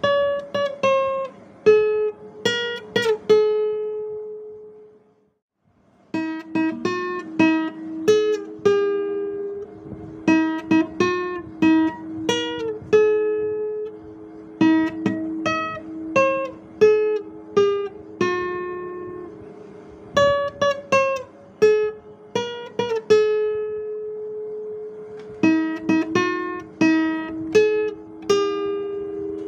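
Guitar playing a slow picked melody, single notes ringing out and fading, with a short pause about five seconds in.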